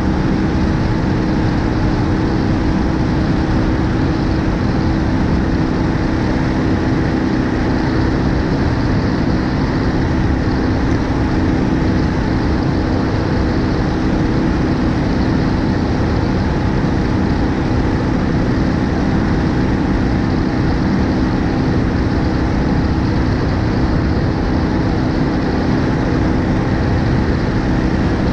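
BMW R1250GS Adventure's boxer-twin engine running steadily at cruising speed, heard from a camera mounted on the front of the motorcycle, under an even rush of wind and road noise.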